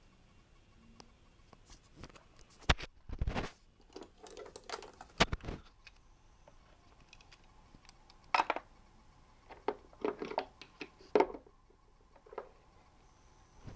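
Hard plastic toy playset parts being handled: irregular clicks, knocks and light rattles as pieces are picked up, moved and set down, in short clusters with pauses between.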